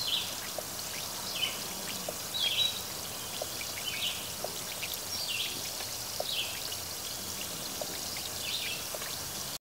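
Muriatic acid fizzing as it dissolves calcite in a submerged rock: a steady effervescent hiss of carbon dioxide bubbles, with faint ticks of bursting bubbles. Short high chirps recur through it.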